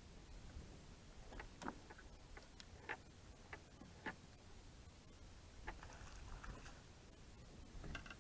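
Faint, scattered clicks and knocks of fishing gear and a landing net against the boat as a fish is played and netted, over a low rumble.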